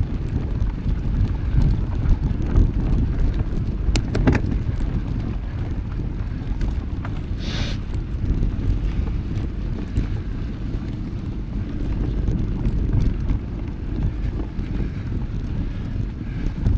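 Wind buffeting the microphone of a mountain bike rider in motion, a steady low rumble. A few sharp clicks come about four seconds in and a short hiss about halfway through.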